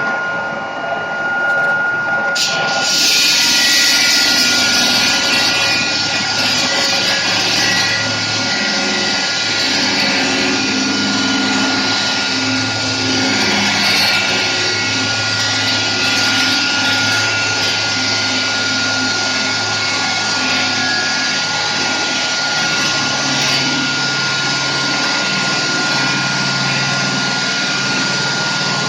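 Liomax 6x600 electric stone-cutting saw running with a steady whine. About two and a half seconds in, a loud high hissing grind joins and keeps going, as the blade works through stone.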